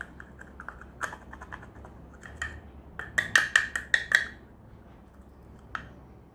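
Plastic jar of Charlotte Tilbury loose translucent setting powder being handled and opened: scattered light clicks and taps, then a quick run of louder plastic clicks about three to four seconds in as the lid comes off, and one more click near the end.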